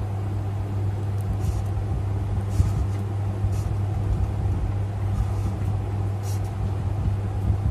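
A steady low hum, with a few faint short scratches of a felt-tip permanent marker being drawn across notebook paper.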